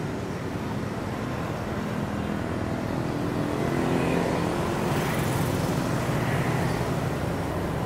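Road traffic running steadily, with a vehicle engine passing close and swelling in pitch and level about halfway through.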